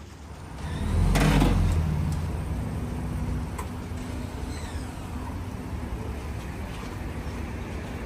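Ford Ranger Raptor pickup's engine revving up about a second in, then settling into a steady low running hum while it tows a BMW on a sling rope.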